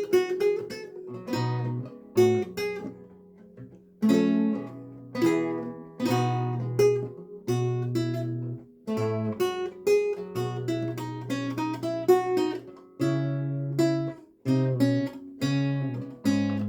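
Renaissance lute played solo: plucked notes and chords, each dying away, over low bass notes. It goes in short phrases with brief breaks between them.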